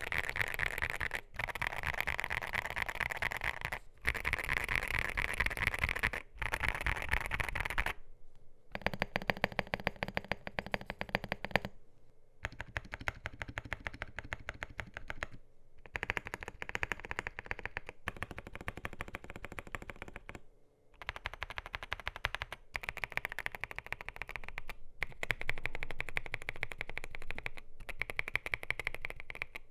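Fast typing on a gasket-mounted CIDOO ABM081 mechanical keyboard with CIDOO Carda switches, a polycarbonate plate and MDA PBT doubleshot keycaps. The key clacks come in quick runs a few seconds long, with short pauses between them.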